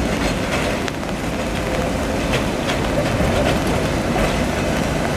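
Gothenburg M29 tram rolling past on street track, its wheels clicking over rail joints and points against a steady rumble.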